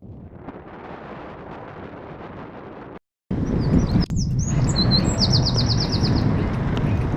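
Wind noise on the microphone. After an abrupt cut, a songbird sings a few chirps and then a fast trill of about ten notes, over heavier wind rumble.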